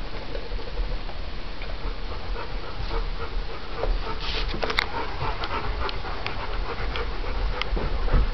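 Dog panting close by, over a low rumble with scattered light clicks.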